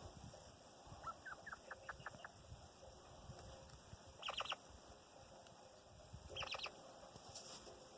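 Chukar partridge calls, faint: a quick run of thin, short notes about a second in, then two brief bursts of chirps, one around four seconds and one near six and a half.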